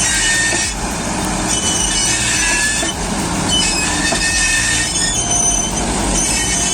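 Heavy machinery running with a steady low rumble, overlaid by repeated high-pitched metallic squeals that come and go every second or so.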